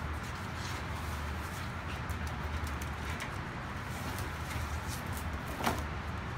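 Steady low room hum with a few faint ticks and a short rustling sound a little before the end.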